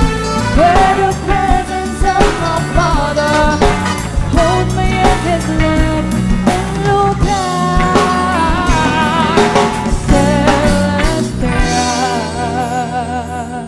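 Band playing a worship song: a sung lead vocal over drum kit and bass. About twelve seconds in, the drums stop and the final chord rings on and fades.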